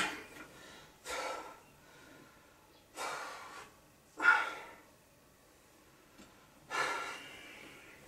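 A man breathing heavily and restlessly in his sleep: four loud breaths a second or two apart, the third the loudest.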